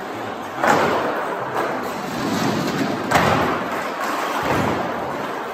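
Plastic clattering and rattling: a plastic wading pool being tipped over and plastic cups and toys tumbling onto a concrete floor, with two louder crashes, one under a second in and one about three seconds in, echoing in a large bare room.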